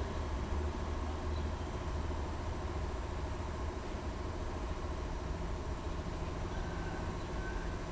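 Mitsui Seiki 15-EC003 machining center running: a steady low mechanical hum with faint steady whines above it, at an even level throughout.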